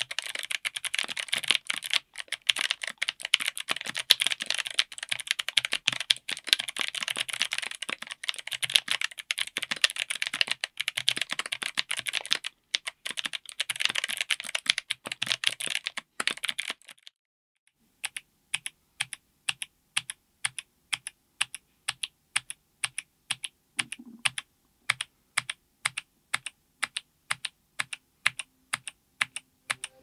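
Typing on a mechanical keyboard with Kailh Crackle Ice clicky BOX switches under MT3 PBT keycaps, on an FR4 plate in an aluminium case: fast continuous typing with sharp clicks, then after a short pause about 17 seconds in, single keystrokes at a steady pace of about two to three a second.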